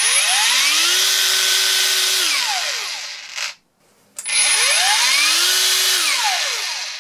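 ToolPRO 18V brushless 125 mm angle grinder run twice with no load. Each time the motor whine rises over about a second as the soft start ramps up to its rated 8,000 RPM, holds steady briefly, then falls away quickly as the electric brake stops it. The first run stops about three and a half seconds in, and the second is winding down near the end.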